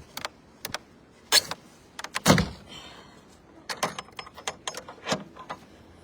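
A series of irregular sharp clicks and knocks, the loudest about two seconds in, with a few quicker ones clustered near the end.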